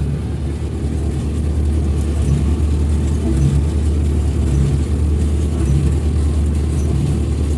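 Tractor-drawn square baler at work: a loud, steady low engine hum with a soft regular pulse about once a second from the baling machinery.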